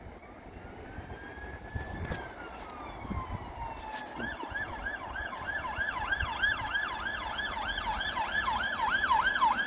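Emergency vehicle siren: one slow rise and fall, then switching about four seconds in to a fast repeating warble of about three sweeps a second. It sounds over a steady low rumble.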